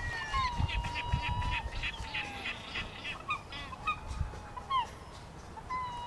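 Gulls calling: long, level wailing calls, a fast run of repeated notes about two seconds in, and short rising yelps around four to five seconds in, with low rumbling underneath.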